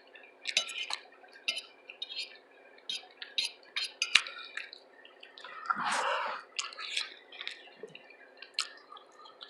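Close-up mouth sounds of a person chewing food: a string of short wet smacks and clicks, with a longer soft rush of noise about six seconds in.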